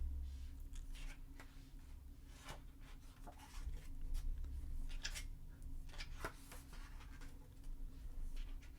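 Pages of a large, thick photobook being turned and handled: soft paper swishes and flicks scattered through, over a low steady hum.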